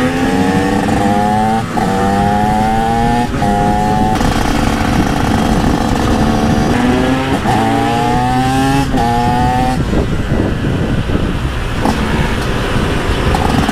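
TM SMR 125 supermoto with an HGS aftermarket exhaust accelerating through the gears. Its engine note rises in pitch and drops back at each upshift: three shifts in the first four seconds, then a second run with two more shifts about two-thirds of the way in. Near the end it settles into a rougher, less even note.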